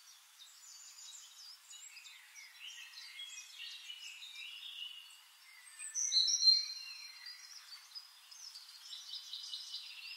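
Birds chirping, many short high calls overlapping, with a louder run of calls about six seconds in.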